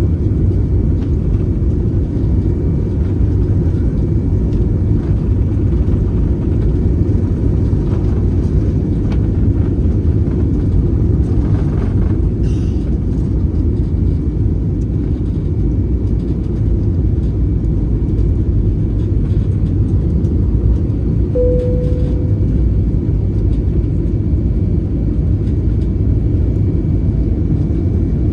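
Airbus A320 jet airliner, a loud, steady low rumble of engines and airflow that holds level without rising or falling. A brief single tone sounds about three-quarters of the way through.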